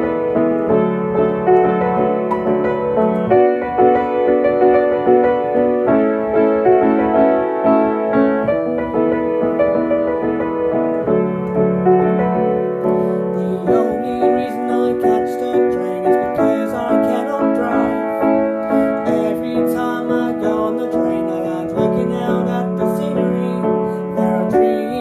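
Piano playing an instrumental passage of repeated chords, the bass note changing every couple of seconds; a brighter high layer joins about halfway through.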